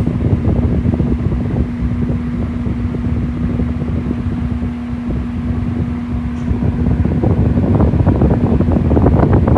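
Arge Max 200 W, 60 cm electric fan running, its motor humming steadily over a loud rush of air buffeting the microphone. About two-thirds of the way through the hum fades and the rush of air grows louder.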